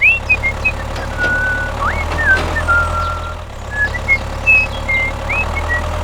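A steady low engine drone, like a tractor idling, with short high whistling chirps over it, some sliding quickly up or down in pitch.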